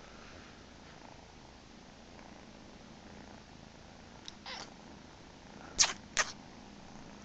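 A cat purring steadily. Near the end come two short, sharp, loud sounds close together, after a softer one a little before.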